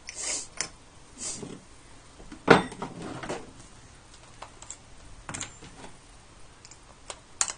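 Scattered clinks and knocks of hard objects being handled on a workbench. The loudest knock, about two and a half seconds in, rings briefly.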